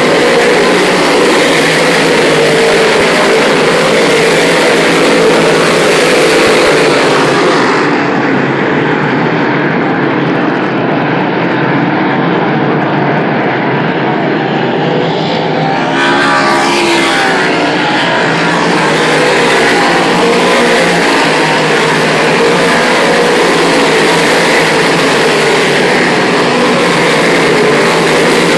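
A pack of big-block modified race cars with big-block V8 engines, running at race speed on a dirt oval, heard as a loud, continuous engine noise. It turns duller and a little quieter about 8 seconds in as the field goes down the far side, then swells again about 16 seconds in as the cars come back past.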